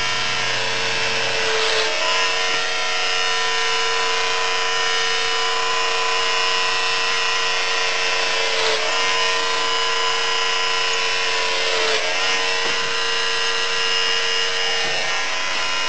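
Electric hair clippers running steadily with a buzzing hum while shaving a head down to the scalp; the pitch dips briefly three times.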